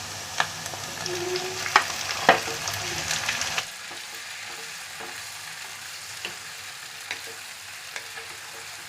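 Onions and green chillies frying in a pan, sizzling, with sharp clicks of a spoon stirring against the pan. About three and a half seconds in the level drops suddenly to a quieter, steady sizzle with occasional faint ticks.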